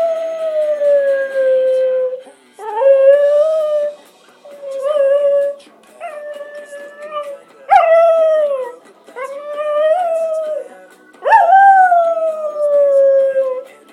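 Cocker spaniel howling along to music, about seven howls in a row with short breaths between, the first and last long and sliding down in pitch. Music plays underneath.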